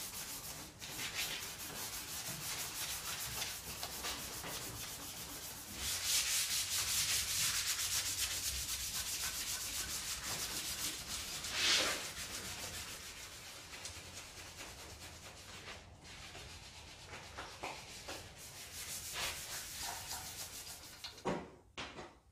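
Hand sanding (flatting) of the primed steel engine-bay panels of a Honda CR-X body shell: a rapid back-and-forth scrubbing. It is loudest about a quarter to halfway through, then grows quieter.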